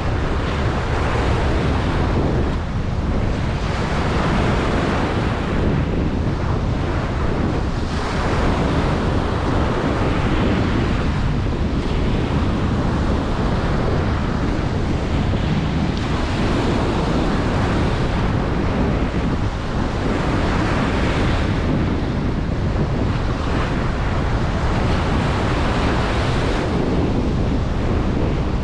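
Ocean surf breaking and washing up a beach in a continuous roar that swells every few seconds, with wind buffeting the microphone.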